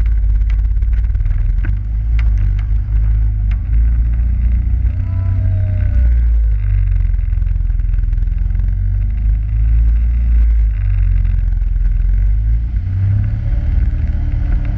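Quad ATV engine running while riding, under a heavy, steady low rumble, with a few sharp clicks in the first few seconds.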